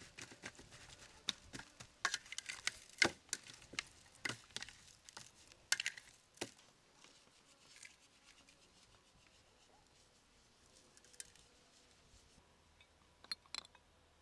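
Hands rubbing and patting seasoning into raw quail on a steel tray: a quick run of sharp slaps and crackly handling noises over the first six seconds or so, then quieter, with a few clicks near the end.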